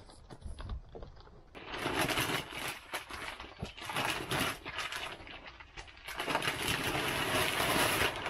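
Black plastic bin bag full of horse manure rustling and crinkling as it is handled and tipped onto the soil bed. The rustling comes in three long bursts starting about a second and a half in, the last one the longest.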